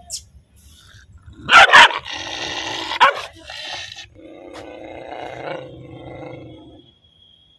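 A dog barks sharply twice, snarls in a long high drawn-out sound, barks again, then growls low and steadily for about three seconds: an angry, threatening dog.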